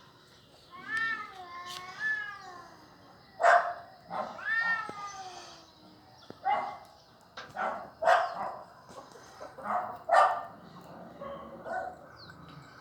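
Cats fighting: long wavering yowls, with a string of short sharp outbursts between them.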